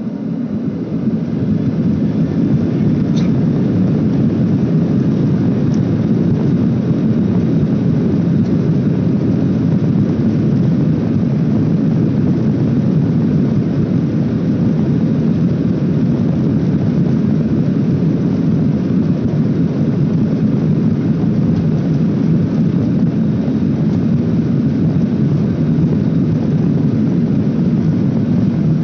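Jet airliner engines heard from inside the passenger cabin. The sound swells sharply about a second in, as thrust comes up, then holds a steady, loud low drone.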